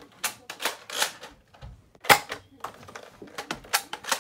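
Nerf break-action shotgun firing foam darts: a run of sharp spring-plunger pops and clicks, with darts knocking against the furniture and floor. The loudest pop comes about two seconds in.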